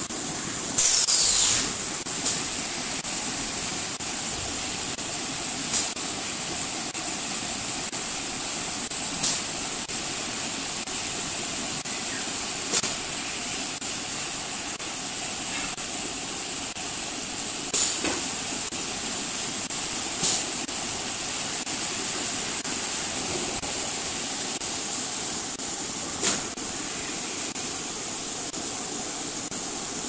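Automatic two-station keg washer running its wash cycle: a steady spraying hiss, broken by short sharp bursts every few seconds, the loudest about a second in.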